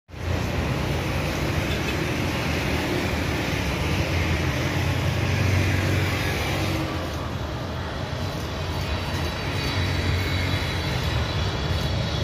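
Road traffic passing close by, cars and motorbikes in a steady rumble, mixed with the Boeing 777-300ER's GE90 engines approaching for landing; a faint high engine whine grows near the end.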